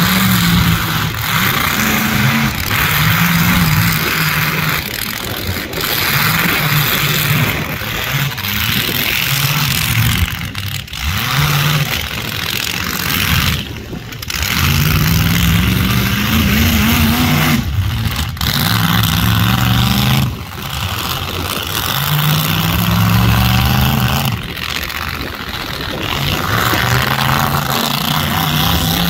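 Demolition-derby mini trucks' engines running loud and being revved hard, the pitch rising and falling again and again as the trucks accelerate and back off.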